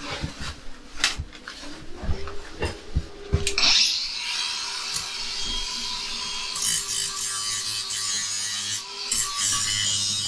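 A few knocks and clatter of handling, then about three and a half seconds in an angle grinder starts and runs with a steady whine, grinding the metal go-kart chassis frame clean ready for welding.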